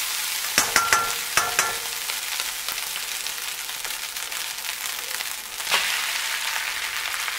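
Rice frying in a wok over super high heat, a steady sizzle while a spatula scrapes and taps against the pan, with a few sharp knocks about a second in. Near six seconds in, a short louder swell of sizzling as cooked vegetables are tipped onto the rice.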